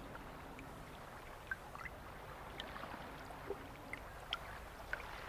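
Faint sea-water ambience: a low, even wash with a scattered handful of small, short bubbly plinks, like gurgling water.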